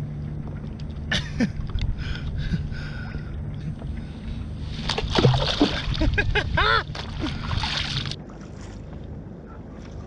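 A hand sweeping and splashing through seawater beside a kayak for about three seconds, starting about five seconds in and stopping abruptly. Before it come scattered rustles and clicks as a fish bag is handled.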